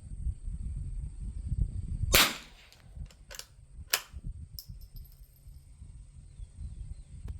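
A single shot from a Winchester Model 52 .22 rimfire target rifle, a sharp crack about two seconds in. It is followed over the next two seconds by several smaller metallic clicks, as of the bolt being worked.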